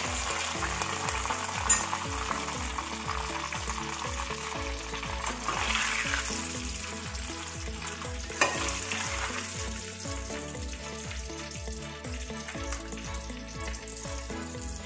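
Banana chips deep-frying in a pot of hot oil, a steady sizzle that thins out over the last few seconds: the frothing has stopped, the sign that the chips are done. Two sharp clinks of the metal ladle against the pot, about two seconds in and again about eight seconds in.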